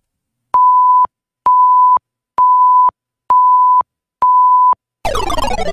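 Countdown timer beeps: five identical steady electronic beeps, about one a second, marking off a five-second answer countdown. Near the end a falling sweep of tones follows, as a time's-up sound effect.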